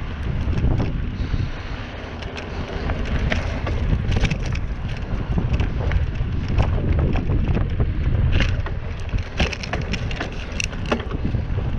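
Mountain bike riding along a dirt trail: wind buffets the microphone in a steady low rumble, over frequent sharp clicks and rattles from the bike and tyres on rough ground.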